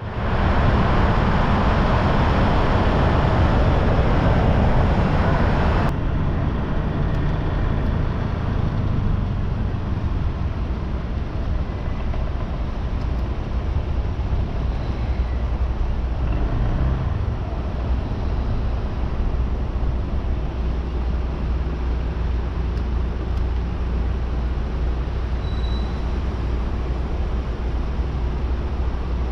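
Road traffic noise: vehicles running with a steady low rumble. About six seconds in the sound changes abruptly to a slightly quieter, deeper rumble.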